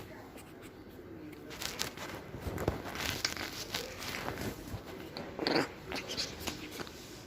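Soft rustling and crinkling with scattered small clicks and knocks, and a short louder sound about five and a half seconds in.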